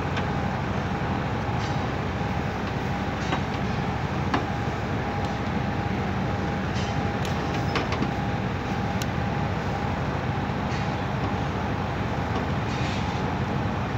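Steady mechanical background rumble with a faint constant whine, broken by a few light clicks as wire terminals and pliers are handled on an AC capacitor.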